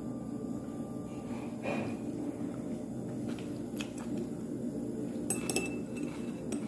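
A few sharp clinks of metal chopsticks and tableware against ceramic dishes, one pair about two-thirds of the way through ringing briefly, over a steady low hum.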